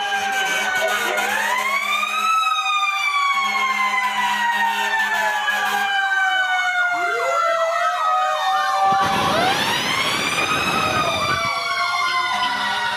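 Several fire-truck sirens sounding at once as the trucks arrive: long wails slide slowly down and up, overlapping with quicker repeated sweeps. A low rumble swells in briefly a little past the middle.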